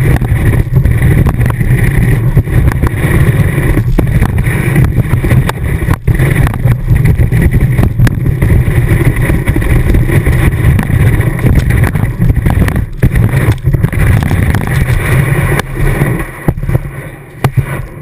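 Ski running over snow, heard through a camera fixed to the ski tip: a loud, continuous rumble and scraping hiss with occasional knocks, breaking up and fading near the end as the skier slows to a stop.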